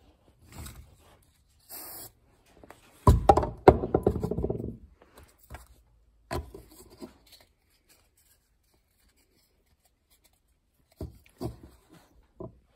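A short hiss of aerosol CA-glue activator sprayed onto the glued adapter about two seconds in, followed by a louder low, rough rumbling noise lasting under two seconds, then a few light knocks on the wooden workbench near the end.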